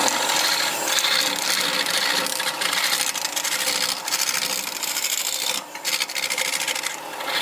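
Hand-held turning tool cutting into the face of a large wooden disc spinning on a lathe: a continuous rough scraping hiss as wood chips are shaved off. It eases off briefly about three-quarters of the way through.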